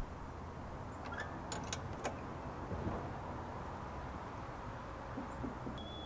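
Low steady outdoor rumble with a few light clicks about one to two seconds in, and a brief high chirp near the end.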